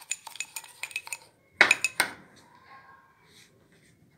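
Metal spoon clinking and scraping against a ceramic cup while coffee, sugar and a little hot water are beaten by hand into a paste. Quick taps in the first second, two louder clinks about halfway, then it goes quiet.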